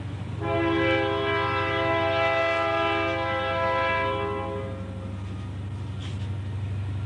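A horn sounding one long, chord-like blast of about four seconds, over a steady low hum.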